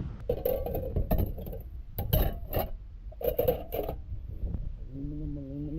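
Small pieces of brass and aluminum scrap clinking and clattering as they are handled and dropped, in several bursts of sharp metallic clinks. A short low hum sounds near the end.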